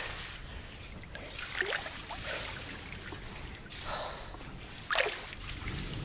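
Swimming-pool water sloshing and splashing close by as a swimmer moves at the pool edge, with a few small irregular splashes, the sharpest about five seconds in.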